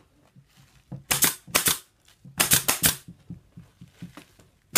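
Pneumatic upholstery stapler firing staples into a wooden chair frame: two shots about a second in, then three in quick succession a little later.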